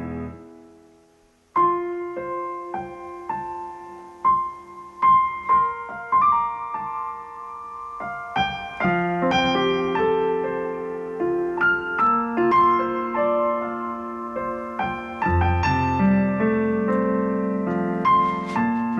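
Acoustic piano playing an instrumental piece: a held chord dies away, and after a brief pause a line of single notes starts up, growing fuller as lower chords join in from about halfway.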